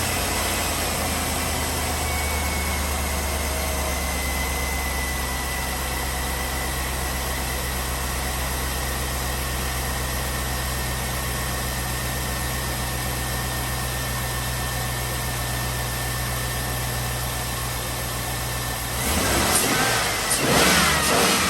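Chevrolet Tahoe V8 engine idling steadily on newly fitted ignition coil packs, then revved briefly twice near the end. It runs smoothly, with no sign of the earlier multiple-cylinder misfire.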